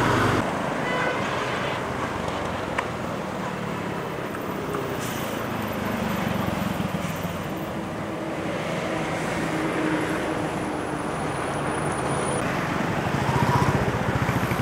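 Road traffic passing on a highway: cars, motorbikes, auto-rickshaws and a truck going by with steady engine and tyre noise, louder for a moment near the end.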